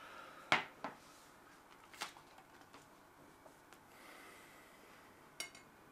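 A few light clicks and knocks of tableware: a mobile phone set down on a wooden table and knife and fork tapping on a plate, the sharpest click about half a second in, the rest spread out and faint.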